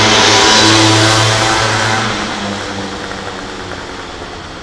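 A motor vehicle passing close by: its engine note and tyre hiss peak about half a second in, then fade away over the next few seconds.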